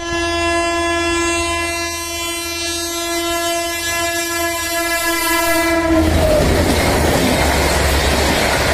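Electric locomotive horn sounding one long, steady blast as an express approaches at high speed, its pitch dropping as the engine passes about six seconds in. It is followed by the loud rush of LHB coaches going by at speed.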